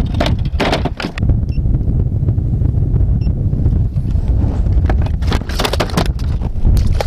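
Wind rumbling on an action camera's microphone, with a few sharp knocks of gear being handled on a plastic kayak.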